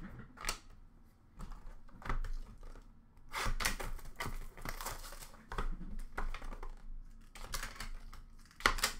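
An Upper Deck Clear Cut hockey card box being picked up and opened by hand: irregular taps, scrapes and crinkling of cardboard and wrapping, busiest around the middle and just before the end.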